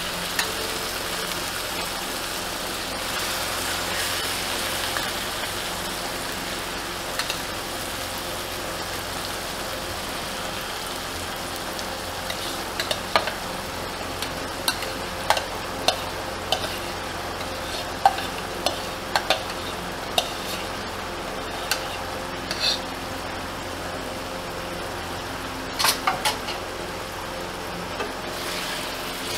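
Boiled red amaranth leaves sizzling as they fry in hot oil with sliced garlic and dried red chillies in a non-stick wok, stirred with a spatula. Scattered clicks and taps of the spatula against the pan come mostly in the second half.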